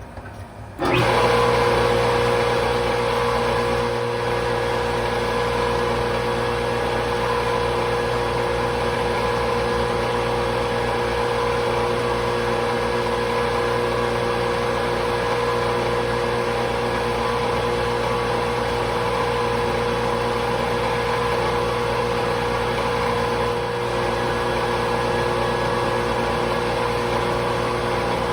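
An electric motor-driven workshop machine switches on about a second in and runs steadily, with a constant hum and whine over a hiss.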